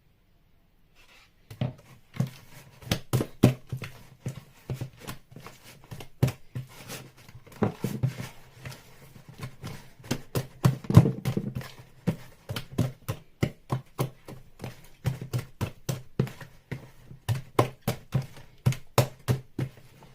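Thick puff puff batter of flour, yeast and warm water being mixed and beaten in a bowl: a fast, irregular run of wet slaps and knocks, about three a second, starting a second and a half in.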